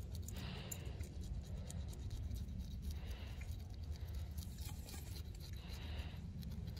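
Faint, repeated scratching and scraping of a knife blade on a small fish as it is cleaned by hand, over a low steady rumble.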